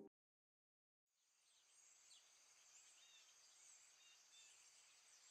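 Near silence with faint outdoor ambience starting about a second in: a few small bird chirps over a steady, high insect drone.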